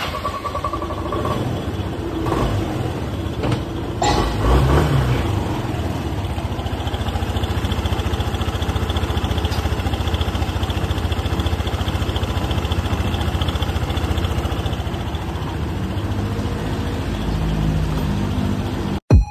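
Yamaha Cygnus-X scooter's 125 cc single-cylinder engine running: revved briefly about four seconds in, then running steadily until it cuts off abruptly near the end.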